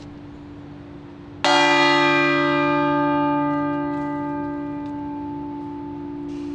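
A large church bell struck once about a second and a half in, then ringing on and slowly dying away, its high overtones fading first and leaving the low hum. A low hum is already sounding before the strike.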